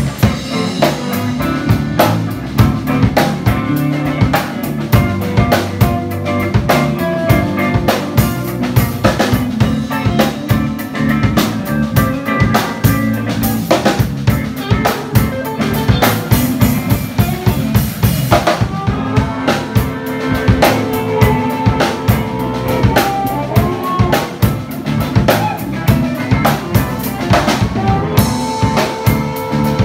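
Live band jamming: a Pearl drum kit plays a busy beat on kick, snare and cymbals under electric guitars, with the cymbals stopping briefly twice, about two-thirds of the way in and near the end.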